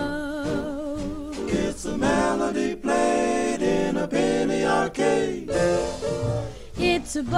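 Music with singing: held sung notes with vibrato.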